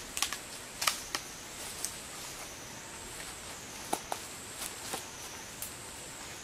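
Forest ambience: a steady, faint, high-pitched insect drone with a scatter of sharp clicks and snaps at irregular intervals, the loudest about a second in and again about four seconds in.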